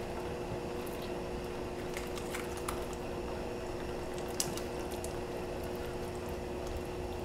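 Fish broth boiling in a clay pot, a steady bubbling hiss, with a few faint clicks of metal kitchen tongs.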